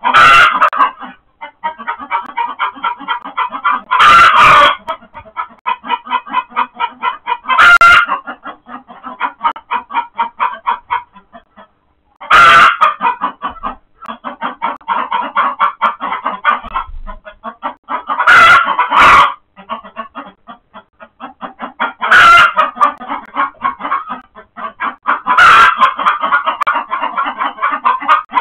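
Chickens alarm-cackling in a fast, unbroken run of short calls, with loud squawks every few seconds, raised by a mink attacking a hen in the coop.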